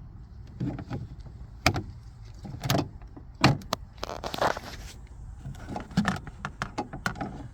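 Plastic interior trim on a car pillar being pried and worked loose by hand: a series of sharp plastic clicks and knocks, with a scraping rustle about four seconds in.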